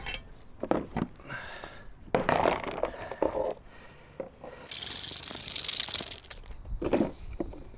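Knocks and handling noise of a plastic mower top shell being turned over on asphalt, then about halfway through a hacksaw blade drawn through the plastic in one long, steady high rasp lasting about a second and a half, cutting a slit to ease a fit.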